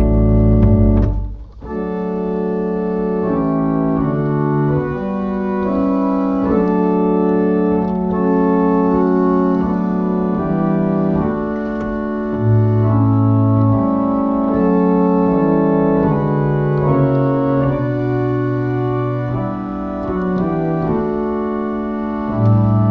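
1871 Walker pipe organ playing a slow piece in held chords. A deep chord cuts off about a second and a half in, and after a brief gap the playing resumes, with low bass notes coming in and out.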